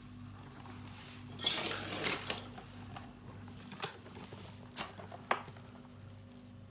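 Metal clattering and clinking as tools and parts are handled: a rattling burst about a second and a half in, then a few separate sharp clicks, over a steady low hum.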